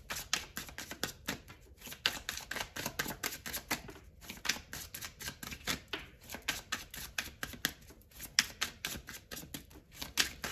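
Tarot cards being shuffled by hand: a steady run of quick card clicks, several a second.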